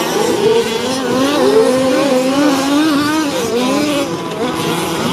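Several 1/5-scale RC off-road cars with small two-stroke petrol engines revving up and down as they race, at least two engines at once, each rising and falling in pitch on its own.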